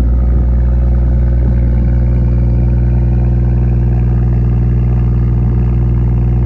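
BMW 540i's turbocharged inline-six idling steadily through a muffler-delete exhaust, a deep even drone with no revving.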